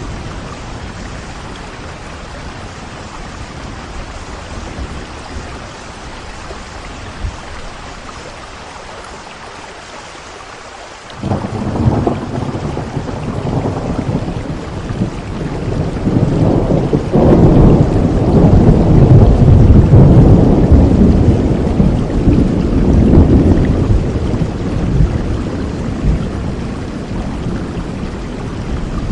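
Steady rain falling. About a third of the way in, a thunderclap cracks suddenly and rolls into a long rumble that grows louder for several seconds, then slowly fades back under the rain.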